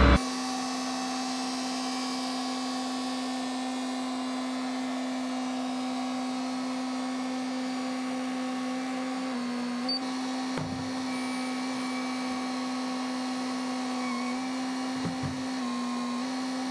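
A steady motor hum, one held pitch that steps slightly up and down a few times, with a couple of faint low thumps near the middle and again later.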